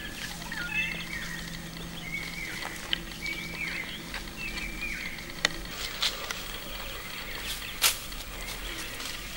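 Birds chirping in short, bending calls, over a low steady hum that stops about halfway through. A few sharp clicks or taps are scattered through it, the loudest near the end.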